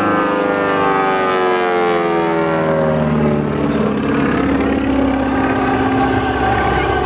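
Display aircraft's engine flying past, its tone falling steadily in pitch over the first three seconds as it goes by, then settling into a steadier, noisier drone.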